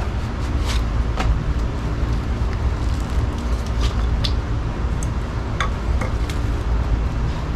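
Jungle King knife blade shaving curls off a stick: a handful of short, sharp scraping strokes, spaced irregularly. Under them runs a steady low rumble.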